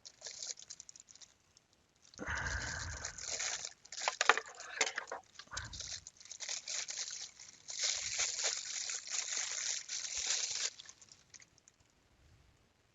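Irregular rustling and crinkling in three bursts, the longest near the end, as the torch and its packaging are handled.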